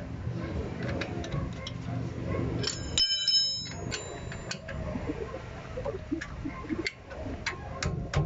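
Metal clinks and clicks of a wrench working on a truck's rear disc-brake caliper bolt, with one bright ringing clang about three seconds in as steel tool and brake parts knock together.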